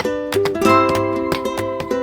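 Background music: bright plucked-string notes, like a ukulele, in a steady rhythm.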